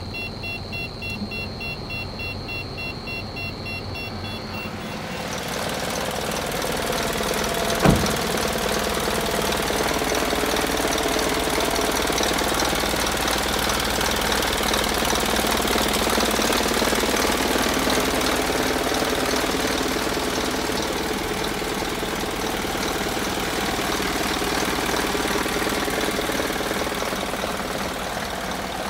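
Isuzu Forward truck's diesel engine idling steadily, louder from about five seconds in. A single sharp knock sounds about eight seconds in.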